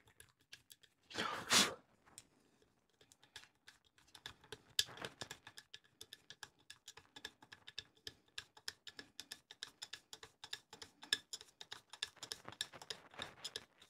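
A screwdriver turning the barrel pivot bolt of a Weihrauch HW35 air rifle, a long uneven run of small clicks, several a second, as the bolt is driven in. A short handling knock comes about a second and a half in.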